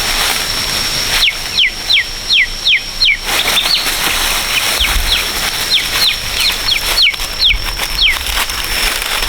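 A bird peeping over and over: short, thin notes, each falling in pitch, about two a second with a brief pause midway. A steady high-pitched whine sounds underneath throughout.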